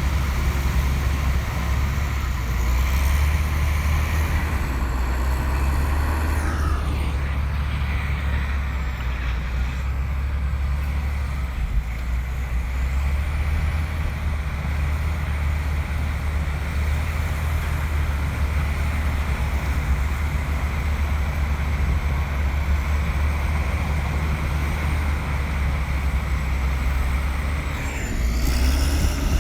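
Komatsu bulldozer's diesel engine running steadily under load with a deep, continuous rumble. Its note sweeps down briefly about six seconds in and again near the end.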